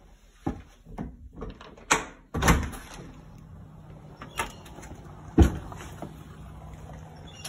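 Glass patio door being unlatched and opened: a few handle and latch clicks, then a heavier rush as it swings open about two and a half seconds in, and a sharp knock a little after five seconds. Once the door is open, a steady low hum of outdoor background runs underneath.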